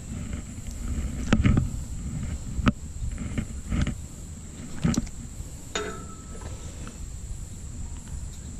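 Low rumble of wind on the microphone with about five sharp knocks and taps, handling noise as a small northern pike is held in the hand.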